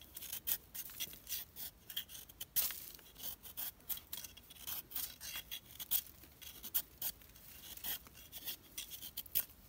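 A knife blade shaving a thin strip of rattan: a run of short, sharp scraping strokes, about two a second and unevenly spaced.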